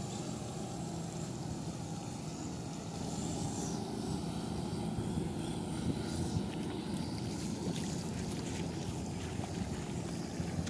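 Vehicle engine running steadily as it drives along a muddy, waterlogged dirt track, with a few knocks and jolts from about six seconds in.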